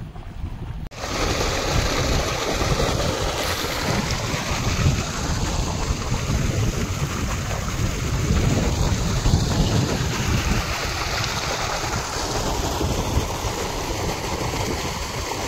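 Steady rushing noise of wind buffeting the microphone, with a flickering low rumble, over water running along earthen irrigation channels; it gets louder about a second in.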